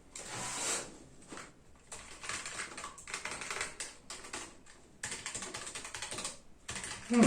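Typing on a Keychron K1 V4 mechanical keyboard with tactile brown switches: a rapid run of keystroke clicks, a little loud, with short pauses about a second and a half in, near five seconds and about six and a half seconds in.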